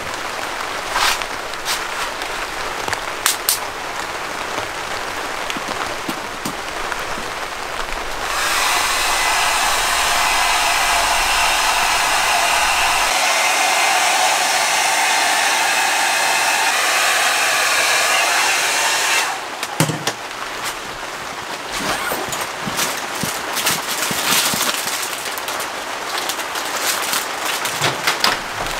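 Rain pattering on tent fabric, with a few clicks and knocks from handling. In the middle a loud, steady hiss starts abruptly and cuts off about ten seconds later.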